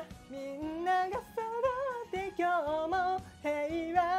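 A song with one voice singing a melody, gliding between notes and holding several long ones, over a faint backing track.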